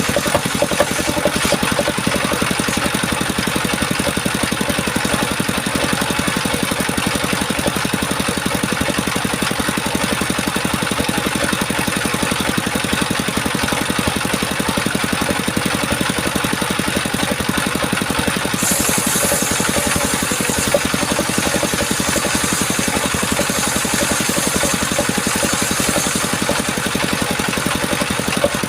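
Circular-saw sawmill machinery running steadily. A higher hiss joins the sound from about two-thirds of the way in and fades near the end.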